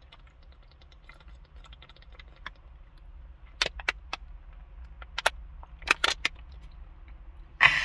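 Thin plastic water bottle crinkling and popping as a man drinks it down and it collapses under his grip: faint crackles at first, then several sharp loud cracks. A loud breathy exhale comes near the end as he finishes drinking.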